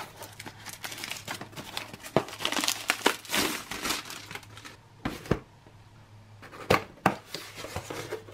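Handling of a 1992 Norwegian SR92 ration pack: a plastic bag crinkling and the cardboard box being slid out and opened, with dense rustling for the first few seconds. A few sharp clicks of the cardboard follow, about five and seven seconds in.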